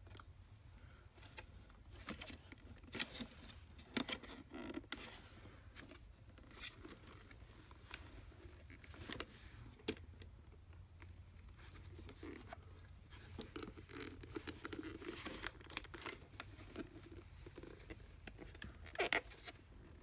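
Plastic parts of a Hart HPVSV50 cordless stick vacuum being handled: the clear dust bin and its flip-open lid turned over and worked by hand, giving faint scattered clicks, taps and rustles, with a few sharper clicks, the loudest near the end.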